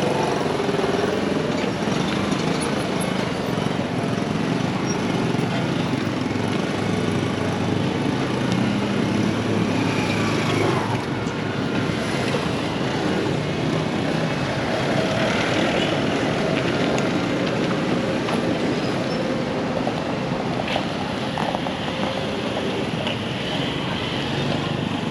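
Steady roadside noise of passing traffic and general street din, with no single sound standing out.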